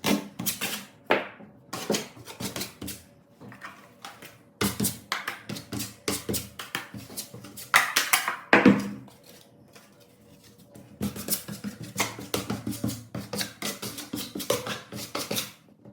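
Repeated rapid scraping strokes of a hand tool working on drywall, in three spells separated by short pauses.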